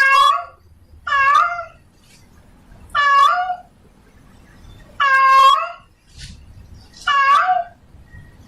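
Female domestic cat in heat calling for a mate: five drawn-out meows, each about half a second long, repeated every second and a half to two seconds.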